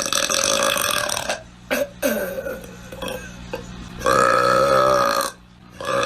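A woman burping several times: a long burp at the start, a short one about two seconds in, and the loudest, a long burp held for over a second about four seconds in. Another burp begins near the end.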